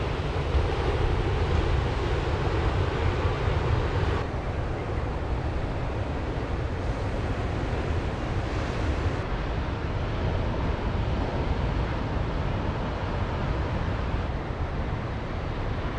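Wind buffeting the microphone with a low rumble, over the steady wash of surf breaking on a beach; the sound changes abruptly about four seconds in and again about nine seconds in.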